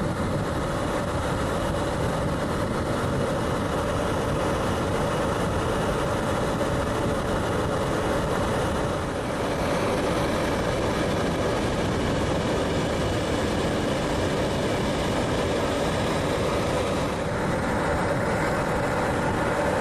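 Steady engine drone with a constant hum, shifting slightly in tone about halfway through and again near the end.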